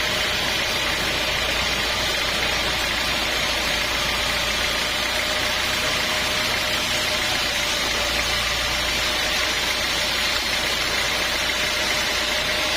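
Sawmill machinery running steadily: a constant engine-like hum with a steady tone above it and no change in load.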